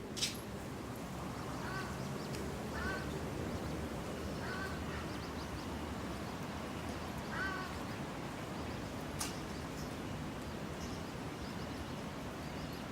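City park ambience: a steady background hum with short bird calls repeating every second or two. A sharp click comes just after the start and another about nine seconds in.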